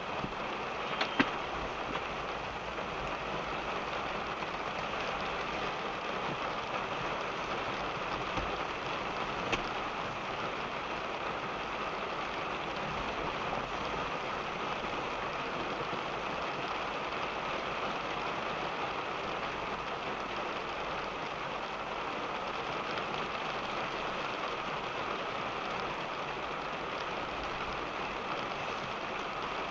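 Rain falling on a car, heard from inside the cabin as a steady patter, with a few louder single drops hitting about a second in and again around eight and ten seconds in.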